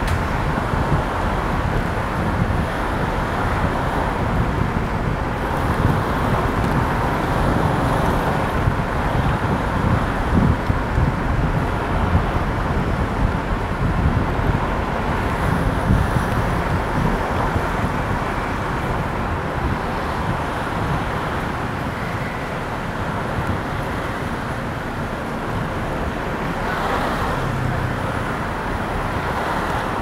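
Steady road noise of a car driving, heard from inside the cabin: tyre and engine hum with a low rumble.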